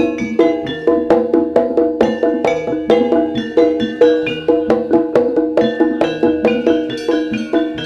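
Javanese jaranan gamelan accompaniment: pitched metal percussion struck in a fast, even pattern of about four notes a second.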